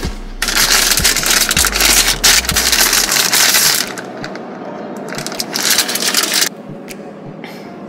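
Plastic snack bag of baked sweet potato sticks crinkling as it is handled and opened, in two spells: a long one of about three seconds starting half a second in, and a shorter one around five to six seconds in.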